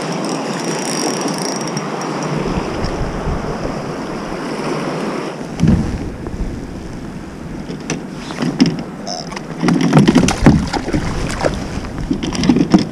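Rushing river current with wind buffeting the microphone, steady for the first five seconds or so. From about six seconds in, a run of knocks, clicks and splashes against the kayak as a small pike is brought alongside and handled.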